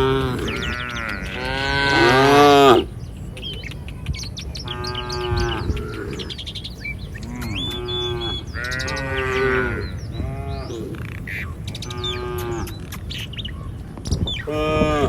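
Several cattle mooing again and again, with the longest and loudest call at the start and shorter moos following every second or two. Small birds chirp faintly over them.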